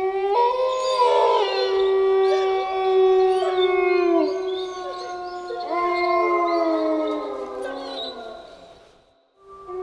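Wolves howling in chorus: several long howls overlap, rising, holding and sliding down against one another. The chorus fades out about nine seconds in, and a new howl starts right at the end.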